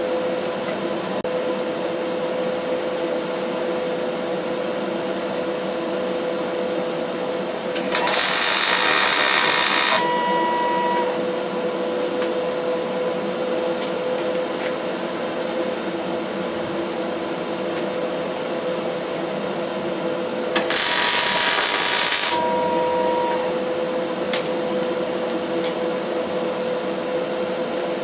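MIG welder laying two tack welds on a steel winch fairlead mount, each arc lasting about two seconds, one about eight seconds in and one about twenty-one seconds in. A steady hum runs underneath.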